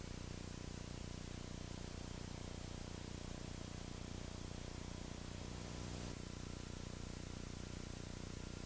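Citabria's piston engine droning steadily, faint and muffled, with a low hum and light hiss; briefly a slightly higher tone joins in about five and a half seconds in.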